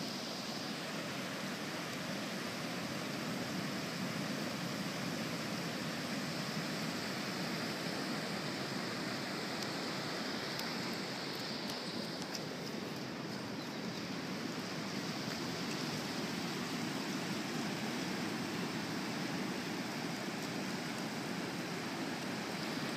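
Ocean surf washing on a flat beach, a steady rushing noise with no single wave standing out.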